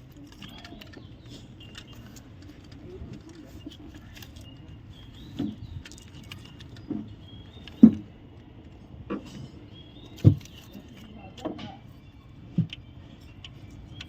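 Metal clinks and knocks of hand tools working on an opened engine's cam and timing chain, about seven sharp knocks roughly a second apart through the middle, over a low steady hum.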